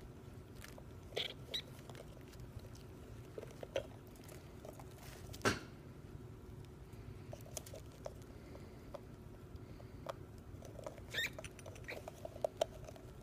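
Pet rats eating chocolate spread from a plastic jar: scattered small clicks and ticks of licking, chewing and claws on the plastic. One louder knock comes about five and a half seconds in, and a quick run of clicks near the end.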